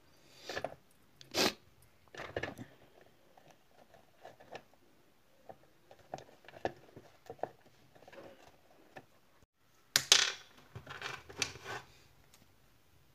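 Clicks, taps and knocks of small plastic and metal toy tractor model parts being handled and fitted together on a wooden workbench, with a louder clatter about ten seconds in.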